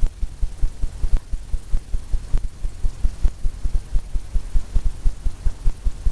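Paint brush tapping on a stretched canvas: a fast, even run of soft low thumps, about five a second.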